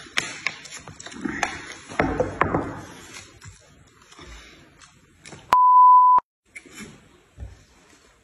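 A loud, steady electronic beep lasting under a second, about halfway through, the loudest sound here. Before it come clicks and clatter of dishes and chopsticks with chewing, and faint clicks follow it.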